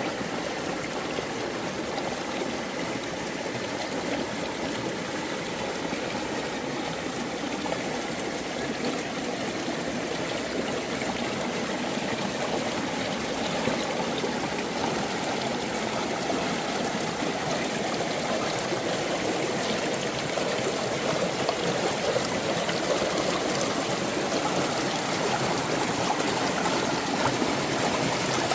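Mountain valley stream flowing steadily, an even rush and trickle of water that grows gradually louder.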